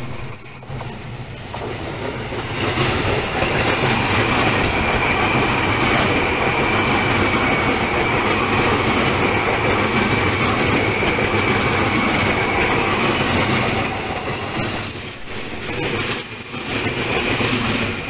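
Seibu 2000 series electric commuter train, two sets coupled, passing close on a curve: steady wheel-and-rail running noise with a clatter. A thin, steady high wheel squeal from the curve rises about three seconds in and fades out a few seconds before the end.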